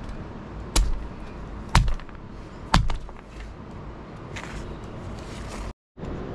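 A blade chopping pork: three loud strikes about a second apart.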